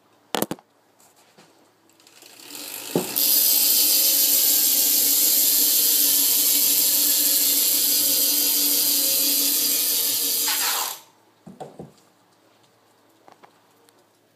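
A BMX bike's Cinema VX rear hub freewheeling, its pawls ratcheting as a fast, loud, steady buzz. The buzz builds up about two seconds in, holds for around eight seconds, then dies away sharply, with a few scattered clicks after it.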